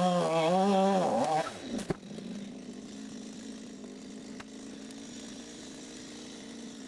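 Two-stroke chainsaw revving unevenly for about the first second and a half, then dropping to a quieter, steady idle.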